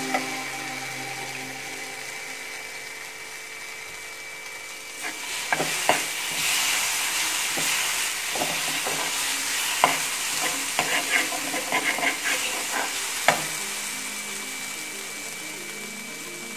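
Spice paste sizzling in oil in a frying pan while a metal spoon stirs it. Through the middle stretch the spoon scrapes and clinks against the pan in a run of sharp knocks.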